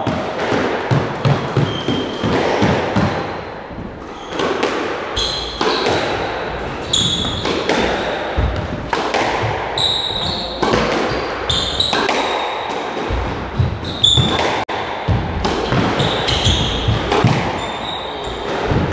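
Squash rally: the ball struck by rackets and hitting the walls again and again, mixed with high-pitched squeaks of shoes on the wooden court floor, coming thicker from about four seconds in.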